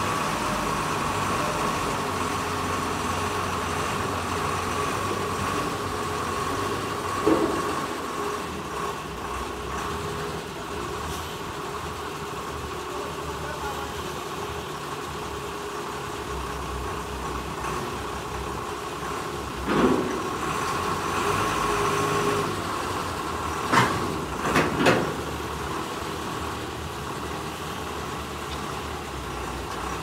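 Diesel engine of a Dingli DL-360 wheeled rotary drilling rig running steadily as the rig drives up a steel ramp onto a truck bed. A few sharp knocks stand out: one about seven seconds in, then several between twenty and twenty-five seconds in.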